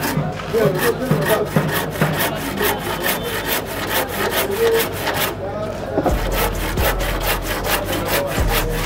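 Handsaw cutting across a wooden plank in quick back-and-forth strokes, about three to four a second.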